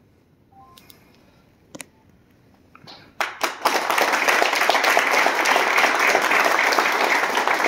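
Audience clapping, breaking out suddenly about three seconds in and going on steadily, as the kata ends with a bow. Before it the hall is hushed, with only a few faint clicks.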